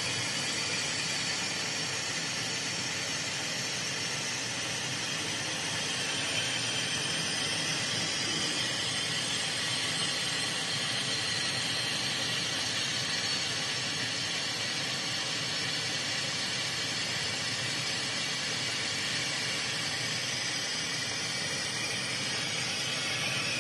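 CO2 laser engraving machine at work: a steady hiss of air blowing from the air-assist nozzle over the cutting spot, with the machine's fans and a faint high whine behind it.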